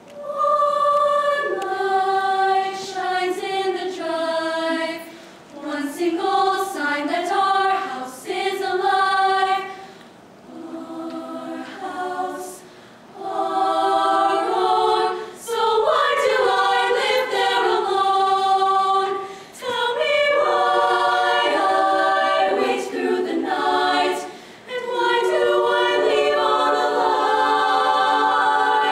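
All-female show choir singing in close harmony, unaccompanied, in held chords and phrases broken by several short pauses.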